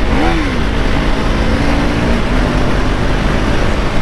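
KTM Duke 390's single-cylinder engine running under way, with heavy wind rushing over the microphone. The engine note rises and falls briefly just after the start, then shifts pitch again around the middle.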